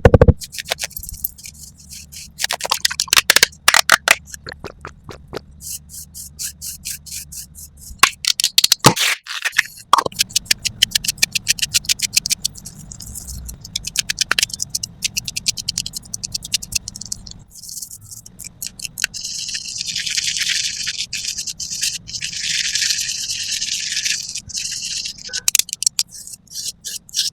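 Close-miked ASMR makeup sounds: rapid tapping, clicking and scraping of makeup tools and packaging. In the later part there is a stretch of steady high hissing, like brushing or spraying.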